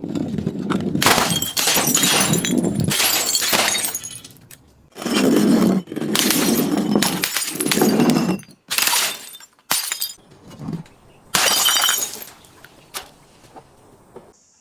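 Glass bottles being crushed, crunching and shattering in long grinding bursts, then a few shorter cracks that die away near the end.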